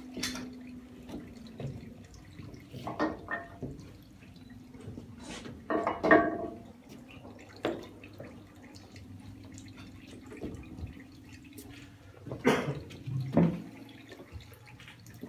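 Oil-and-water run-off from a traditional screw olive press dripping and trickling into a stone basin, over a faint low hum. A few louder knocks stand out, the loudest about six seconds in and twice more near the end.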